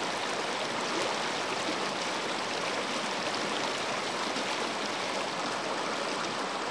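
Shallow river water rushing steadily over and between boulders, a constant even hiss with no break.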